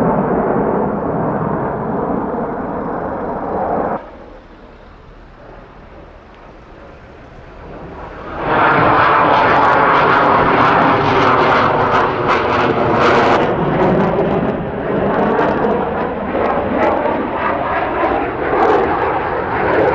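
Loud aircraft engine noise as planes fly low over the runway. It drops off abruptly about four seconds in and comes back loud about eight seconds in, with a pitch that slides down as an aircraft passes.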